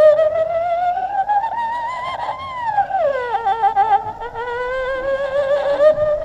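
A single eerie, wavering wail for a ghost scene, with heavy vibrato. It slides slowly upward, drops steeply about halfway through, then wobbles and climbs again.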